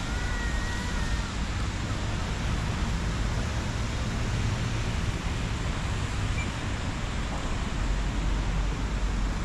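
Steady outdoor noise: an even hiss with a low rumble, with a faint short high chirp right at the start.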